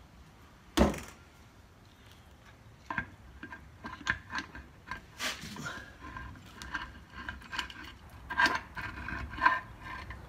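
Shift cover of a 1953 Dodge three-speed manual transmission being worked loose from the cast iron case: a sharp knock about a second in, then a run of small metal clinks, knocks and scrapes, a few of them briefly ringing.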